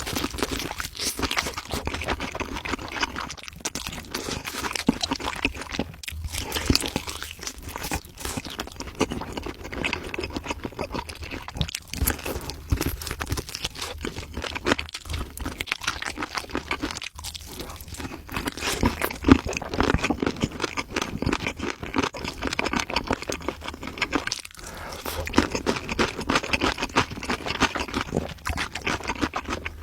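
Crunchy food being chewed and bitten: a dense, irregular run of crackles and crunches that keeps going without a break.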